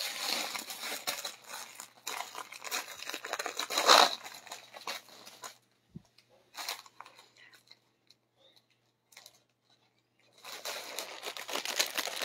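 Clear plastic garment bags crinkling and rustling as packed clothes are handled. The crinkling is dense for the first half, loudest around the fourth second, then drops to a few faint clicks and picks up again near the end.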